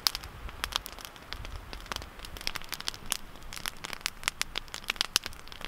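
Wood fire crackling in a hot-tent wood stove, with many sharp, irregular pops and snaps.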